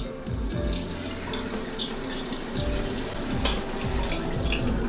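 Hot frying oil pouring from a wok through a perforated metal strainer into a bowl beneath, a steady splashing trickle, with the fried meatballs sliding out into the strainer near the end. Background music with a steady beat plays underneath.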